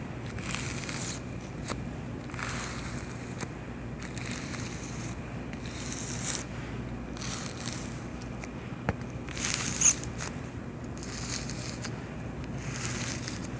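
Cockroaches scratching and rustling: short dry scraping, crackling patches about once a second over a steady low hum, with a sharp click about nine seconds in and the loudest scrape just after.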